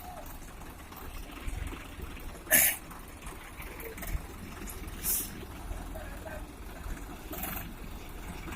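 Tractor diesel engines running with a low steady rumble, broken by three short hissing bursts: about two and a half seconds in (the loudest), about five seconds in, and near the end.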